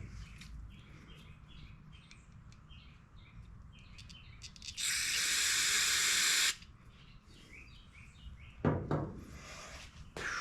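A steady spray hiss lasting about a second and a half, near the middle, as a generator carburetor's passages are sprayed through during cleaning. Small birds chirp faintly in the background.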